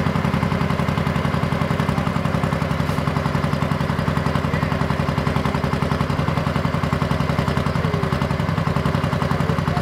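Diesel engine of a second-generation Dodge Ram pulling truck idling loudly and steadily with a rapid, even pulsing, while the truck sits hooked to the pulling sled waiting for the start.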